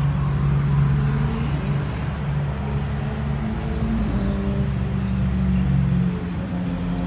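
An engine running steadily, a low drone whose pitch shifts slightly a few times.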